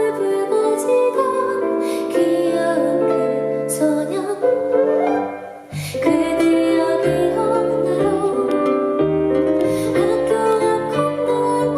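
A soft pop ballad played live: piano with a gentle female voice. A deeper, fuller accompaniment comes in about six seconds in after a brief softening.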